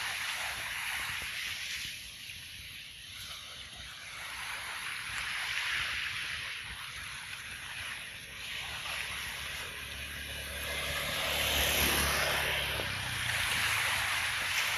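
Small motor scooters approaching along the road, their engines a low hum that grows loudest about three quarters of the way through. Under it runs a rushing hiss that swells and fades every few seconds.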